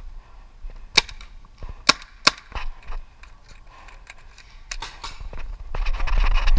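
Paintball markers firing: several sharp cracking shots, the three loudest within the first two and a half seconds and a few fainter ones later. Near the end a louder rushing, rustling noise comes in.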